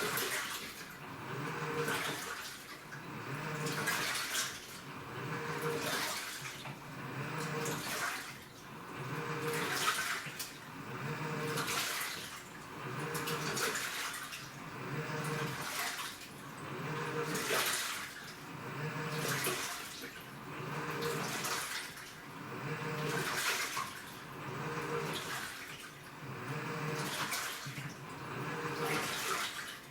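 Washing machine agitating through its wash cycle. About every two seconds the motor hums as it drives the tub one way, and the water swishes and sloshes with each stroke.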